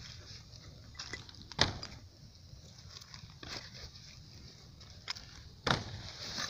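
Large bonfire of wood and cardboard burning over a low steady rumble, with a few sharp pops and cracks; the two loudest come about a second and a half in and near the end.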